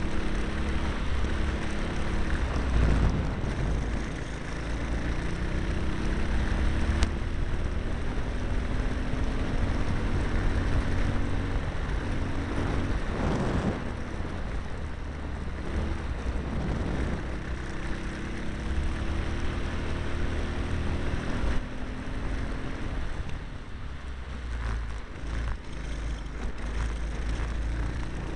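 Honda cadet kart's small single-cylinder four-stroke engine running at race pace. Its pitch climbs steadily over several seconds at a time and drops back again, over and over, under heavy low wind rumble on the onboard microphone.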